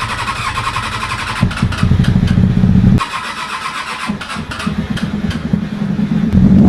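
Triumph Daytona 600's inline-four engine starting and running, its revs rising for a second or so, dropping back, then climbing again near the end.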